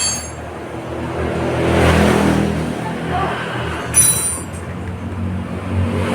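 A motor vehicle passes on the road, swelling up and fading away, and another approaches near the end. Two sharp metal clinks, one at the start and one about four seconds in.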